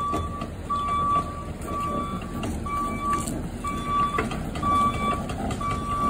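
Backup alarm on a New Holland C238 compact track loader beeping about once a second, the warning it gives while the machine reverses. The loader's diesel engine runs underneath, with a few short knocks.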